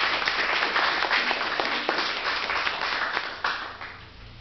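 Audience applauding at the end of a song, the clapping thinning out and fading over the last second or so.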